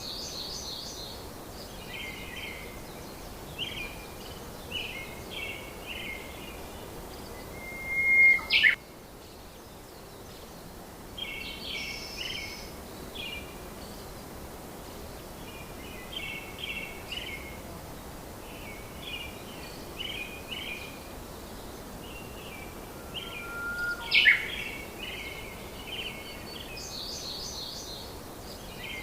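Birdsong: small birds chirping in short repeated phrases over a steady hiss, with a louder sharp call about eight seconds in and again near the end.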